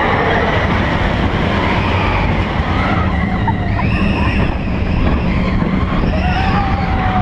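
Vekoma steel roller coaster train rolling along its track, a loud steady rumble with a low hum and faint high squeals that rise and fall over it.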